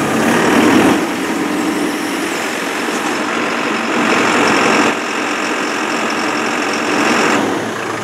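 JCB 3CX Eco backhoe loader's diesel engine running at working revs. Near the end it drops down toward idle: the Auto Idle feature kicking the RPM down after its delay, set to about four seconds, with the controls untouched.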